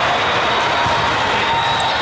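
Steady din of a large hall full of volleyball matches: many voices mixed with the thuds of volleyballs being struck and bouncing.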